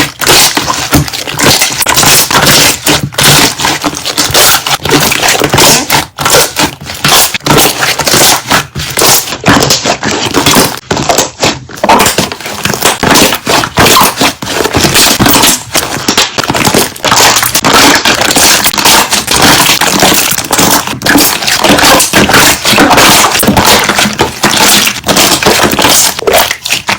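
Slime being squeezed and pressed, the air bubbles trapped in it popping in rapid, irregular crackling clicks.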